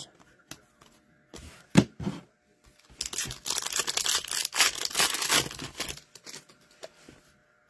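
Foil wrapper of a hockey card pack being torn open and crinkled by hand: a few short crackles, then a dense rustle of tearing and crinkling foil from about three seconds in to six seconds.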